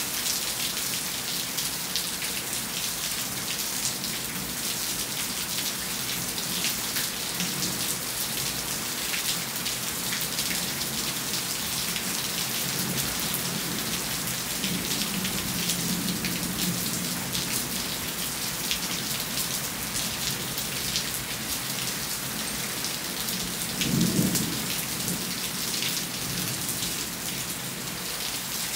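Rain falling steadily, with many individual raindrop hits. A low rumble of thunder comes around the middle, and a louder one late on.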